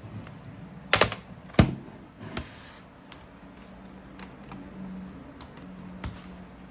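Sharp clicks and taps of a laptop being handled: two loud clicks about a second in, lighter ones later.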